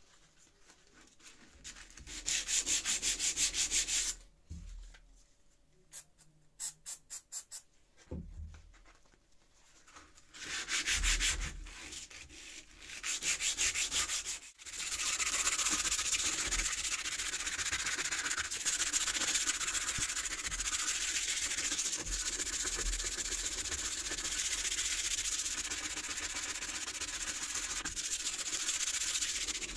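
Sandpaper rubbed back and forth by hand over a rusty steel spade blade to scour off the rust. Short bursts of quick strokes in the first half give way to continuous, steady sanding from about halfway through.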